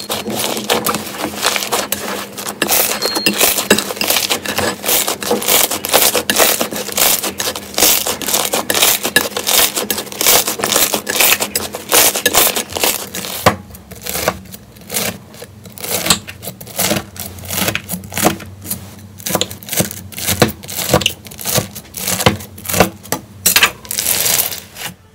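Hands squeezing and kneading slime: dense, continuous crackling and popping of air pockets. About halfway through, this changes to sparser, sharper crunchy pops as a bead-filled crunchy slime is pressed.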